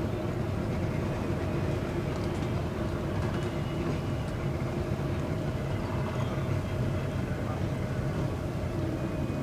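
An engine running steadily at low revs, an even drone with a constant pitch that does not rise or fall.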